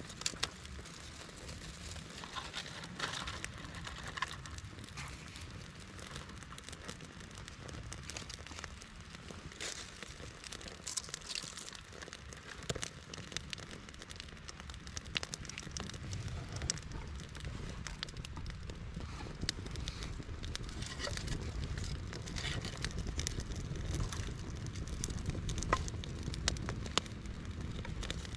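Irregular crackling and rustling over a low rumble, like a small wood campfire burning with sticks or gear being handled close by.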